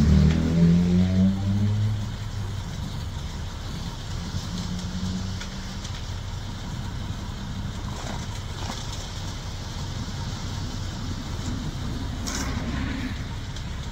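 A motor vehicle engine running, loudest in the first two seconds with its pitch shifting, then settling to a steady low rumble. A short click about twelve seconds in.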